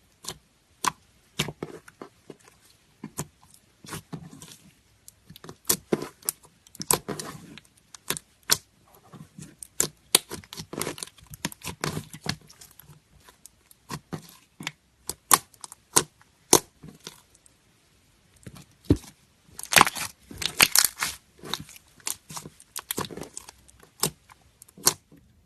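Homemade slime being handled and worked, giving irregular sticky clicks, pops and crackles, with a busier burst of crackling near the end.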